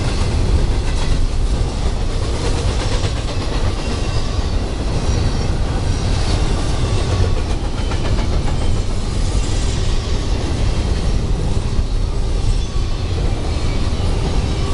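Double-stack intermodal container cars rolling past: a loud, steady rumble of steel wheels on rail, with repeated clicks as the wheels cross rail joints.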